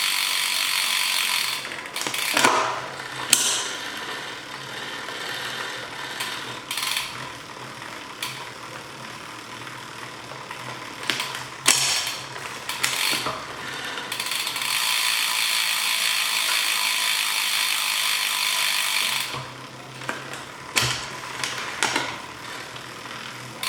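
Bicycle drivetrain turned by hand: the chain running over the rear sprockets with the freehub ratcheting, a steady whir for the first couple of seconds and again for about five seconds past the middle. Sharp clicks in between from gear shifts and the chain moving across the sprockets, as the rear derailleur's cable tension and stops are being set.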